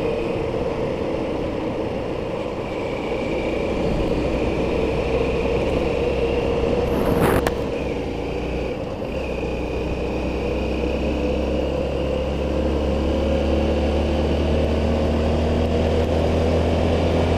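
Engine of the road vehicle carrying the camera, running steadily at highway speed with wind and road noise; a sharp click about seven seconds in, and the engine note rises slowly near the end as it speeds up.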